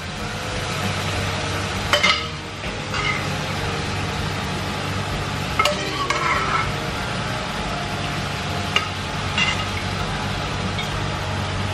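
Pressure-cooked oxtail and beef being spooned from a pressure cooker into a hot wok, sizzling steadily, with a few sharp clinks of the spoon against the pot.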